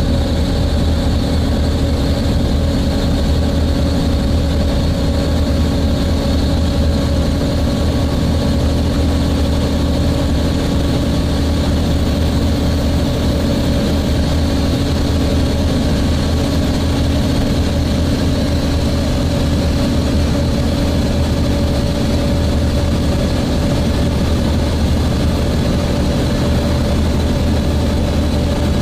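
Volvo B7TL double-decker bus's engine and cooling fan running steadily, heard from on board: a deep drone with thin steady whining tones above it, unchanging throughout.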